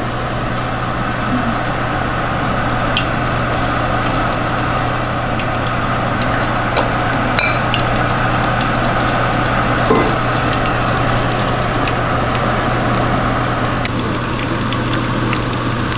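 Beer-battered kingfish pieces deep-frying in hot oil: a steady sizzle with scattered small pops and crackles.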